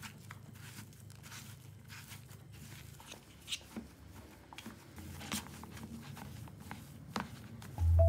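Faint kitchen food-preparation handling sounds: scattered light clicks and knocks of utensils and containers, with music starting loudly right at the end.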